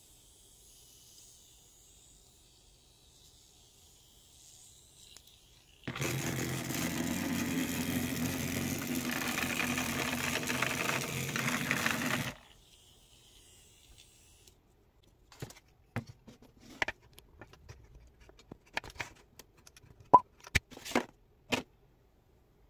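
Small vibration motor of a Hexbug-style toy cockroach buzzing steadily for about six seconds, starting and stopping abruptly as it is switched on and off. Then a string of sharp clicks and taps as the plastic toy is handled and set down on the tabletop.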